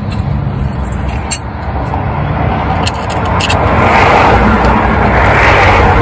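A passing vehicle, its road noise swelling in the second half and easing at the end, over a steady low rumble, with a few light clicks near the middle.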